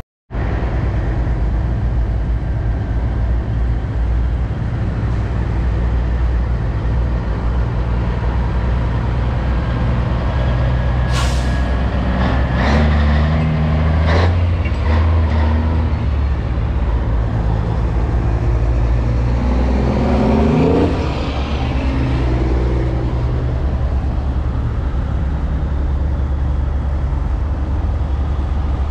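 Semi-truck diesel engines running as big rigs pull away, with a few short air-brake hisses about 11 to 14 seconds in and an engine revving up around 20 seconds in.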